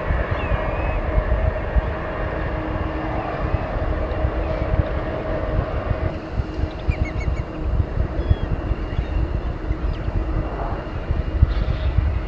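Jet aircraft engines whining steadily, mixed with wind buffeting the microphone.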